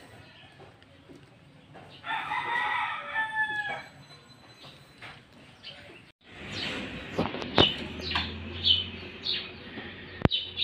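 A rooster crows once, a drawn-out call of nearly two seconds starting about two seconds in. In the second half, short high chirps and a few sharp clicks sound over a steady low hum.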